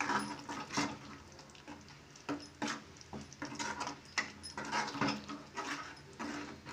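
Steel spoon stirring thick masala paste in a kadhai, scraping against the pan's bottom in irregular short strokes.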